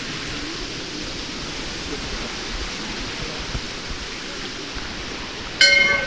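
Steady rush of flowing stream water. Near the end a metal bell is struck once and rings loudly, a clang with several sustained ringing tones, typical of a temple bell.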